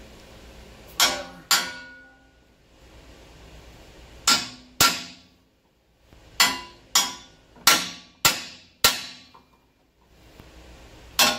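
Sharp steel-on-steel strikes with brief metallic ringing, about ten in all and mostly in pairs, as a long steel bar is driven against a rusted-in truck torsion bar to knock it loose.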